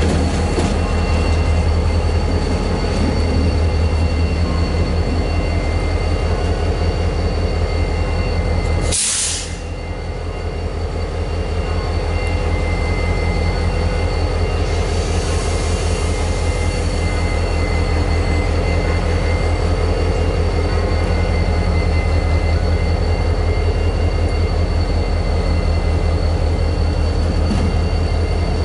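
CSX GP40-3 diesel-electric locomotive with its turbocharged EMD 16-645 V16 running steadily as it moves away down the yard track. A deep steady engine hum carries thin, steady high-pitched tones above it, and there is a brief hiss about nine seconds in.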